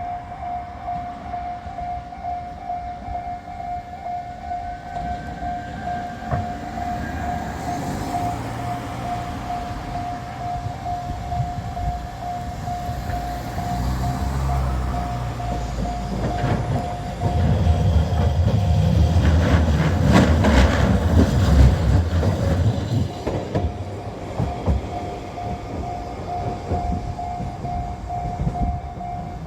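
A level-crossing warning bell dings steadily with a repeating electronic tone while Kagoshima City tram car 7501 approaches and passes over the crossing. The tram's wheels rumble and clack over the rails, loudest about twenty seconds in, then fade.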